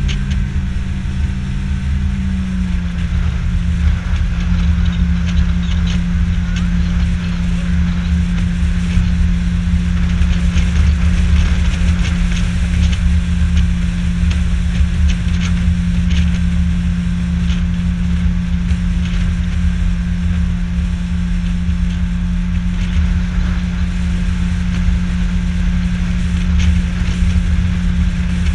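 Outboard motor pushing an aluminum fishing boat at a steady cruising speed, with water slapping and ticking against the hull; the engine note shifts slightly lower about two and a half seconds in.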